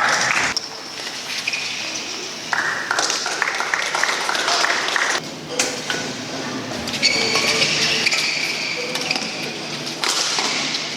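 Badminton doubles rally in a large hall: rackets striking the shuttlecock with crisp smacks, with high squeaks between the hits and voices in the background.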